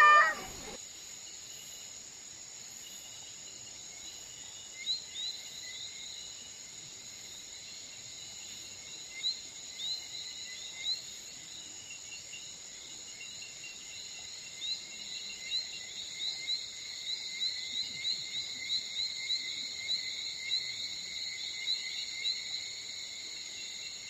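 Insects chirping outdoors: short, high chirps over a steady high hiss, repeating faster and more densely from about halfway on.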